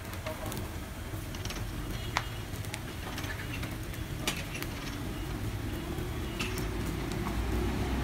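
Charcoal rotisserie grill with meat skewers: a few sharp clicks and crackles over a steady low street hum, with a low rumble, like an approaching vehicle, growing near the end.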